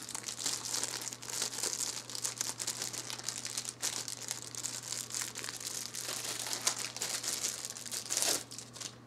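Clear plastic packaging bag crinkling and rustling continuously as a small adapter is worked out of it by hand; the crinkling stops shortly before the end. A steady low electrical hum runs underneath.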